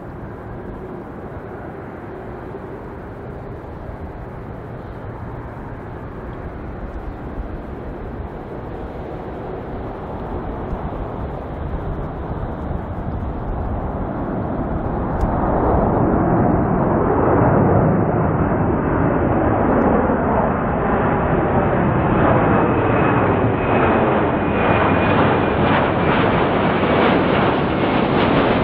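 Qantas Airbus A330-303's twin General Electric CF6-80E1 turbofans at takeoff thrust, growing steadily louder as the airliner climbs toward and over the listener. About halfway the sound swells sharply, and in the second half a high whine slowly falls in pitch as it passes overhead.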